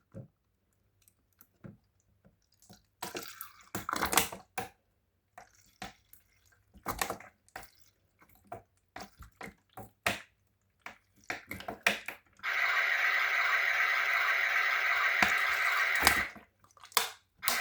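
Simba toy washing machine with a little water in its drum: scattered drips, splashes and clicks, then its small drum motor starts running steadily about two-thirds of the way in. It stops briefly and starts again near the end, the drum turning in reverse.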